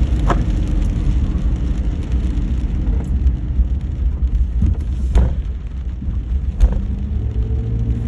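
Steady low rumble of a car on the road, with a few sharp taps, the clearest about five and six and a half seconds in.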